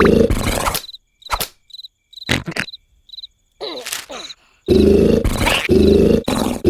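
A cartoon larva snoring loudly in rough, repeated bursts. The snoring stops about a second in, leaving a few short knocks and high cricket chirps, then starts again about five seconds in.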